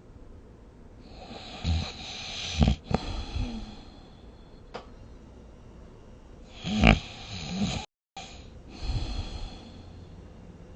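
A sleeping person snoring: a few rasping snores with quiet breathing between them, the first two breaking into a short sharp catch at their peak, the loudest about seven seconds in. The sound drops out completely for a split second about eight seconds in.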